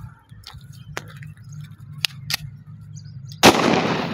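Scorpion 20-shot 30 bore (7.62×25 mm) pistol firing a burst on automatic: after a few faint handling clicks, a loud rapid string of shots begins about three and a half seconds in and runs on, the reports blurring into one continuous blast.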